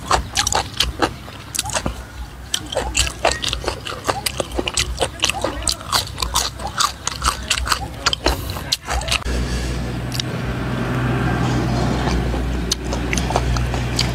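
Close-up chewing of raw beef and fresh vegetables, with rapid wet mouth smacks and clicks. About nine seconds in, a steady low hum comes in underneath and holds.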